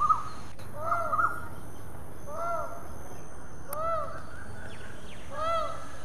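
Peafowl calling: four short calls, each rising and falling in pitch, about one every second and a half.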